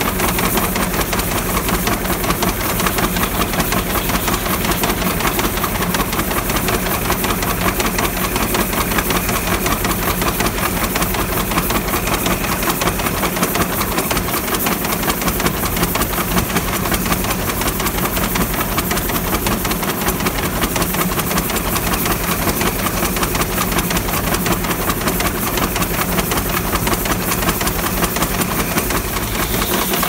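Case steam engine running steadily as it powers a sawmill, with a fast, even beat of exhaust knocks over a continuous steam hiss.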